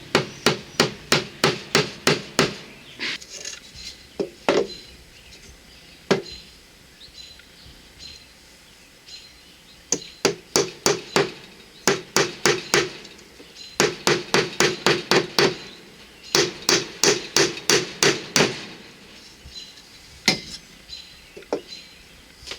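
Hammer tapping small nails into a wooden beehive brood frame, in quick runs of light strikes about four a second with short pauses between runs.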